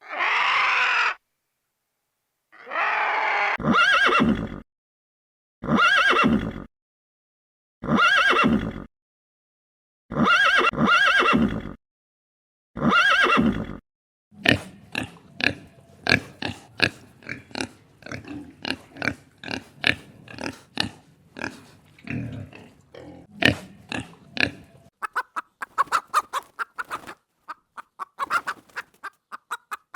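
A run of animal calls: five or six separate calls about a second long, each with a rough, pitched quality, spaced a couple of seconds apart. These give way about halfway through to a fast, dense series of short clicking and chattering calls.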